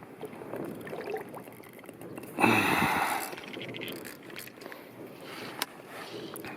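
Water sloshing and splashing close to a float tube, with one louder rushing splash lasting about a second, about two and a half seconds in.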